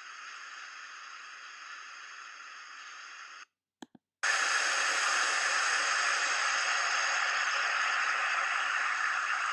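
A steady hiss that cuts out for under a second about three and a half seconds in, with a couple of clicks in the gap, then comes back louder.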